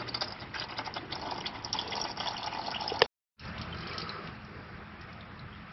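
Warm engine oil running out of the opened drain valve of a Cummins Onan QG 5500 generator in a steady stream, the change-time drain of the old oil. The sound cuts out for a moment about three seconds in, then goes on a little quieter.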